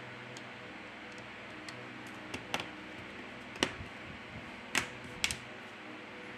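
Plastic middle frame of a Samsung Galaxy A41 being set back onto the phone and pressed down by hand, giving about five sharp plastic clicks between two and five seconds in, over a faint steady hum.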